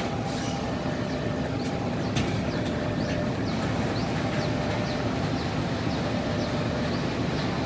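Diesel passenger train standing at the platform, its engine running with a steady low rumble.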